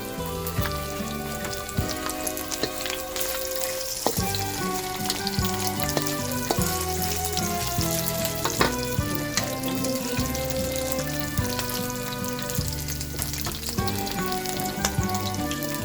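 Food sizzling and crackling in hot oil in a cooking pot, over background music of held notes.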